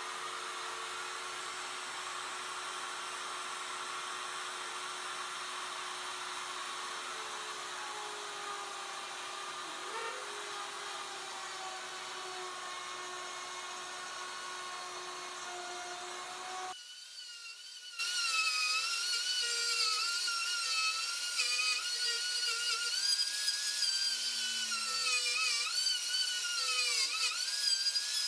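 Router motor on a homemade duplicating carving machine running with a high whine. It drops away briefly about 17 s in, then comes back with its pitch wavering up and down.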